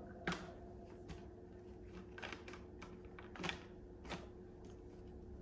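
Faint, scattered clicks and light knocks of a spray bottle with a plastic trigger head being taken hold of and handled on a tiled counter.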